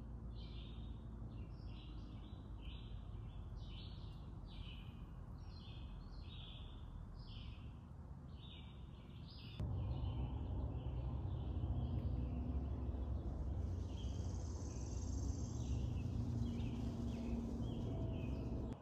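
Birds in a leafy forest giving a long run of short, repeated chirps, about two to three a second, over a low rumbling background that gets louder about halfway through.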